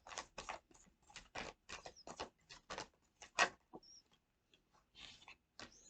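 Tarot cards being shuffled by hand: a string of short papery swishes, about two or three a second, with a brief pause about four seconds in.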